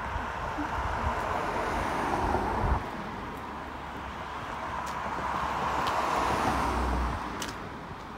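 Cars passing on the road alongside, with tyre and engine noise swelling. The first pass builds and cuts off sharply about three seconds in; a second rises, peaks and fades near the end.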